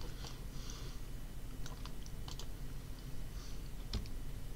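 About half a dozen short, sharp clicks of a computer mouse, scattered irregularly and including a quick pair near the end, over a low steady hum.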